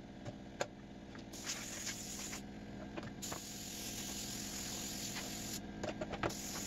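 Compressed air hissing from an air-hose nozzle in long blasts broken by short pauses, blowing sanding dust off a plywood board. A few light knocks come as the board is handled, one about half a second in and two near the end.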